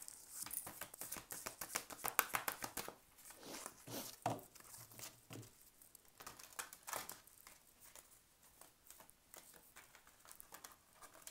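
A deck of oracle cards being shuffled by hand: a quick run of card clicks and flicks for the first few seconds, then sparser, softer clicks as the shuffling goes on.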